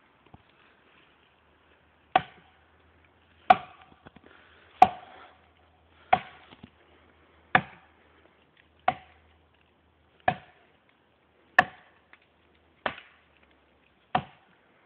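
An axe chopping into the trunk of a large standing tree: ten steady, evenly paced blows, roughly one every second and a third, each a sharp crack with a short ring. The blows start about two seconds in.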